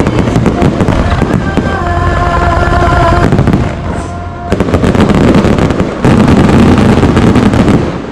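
Aerial firework shells bursting overhead in a dense, very loud barrage of bangs and crackling, easing briefly about four seconds in before picking up again.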